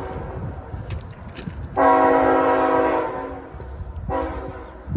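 Approaching diesel locomotive's air horn sounding: the tail of one blast at the start, a long blast of about a second and a half that fades away, then another blast beginning near the end, over a low rumble.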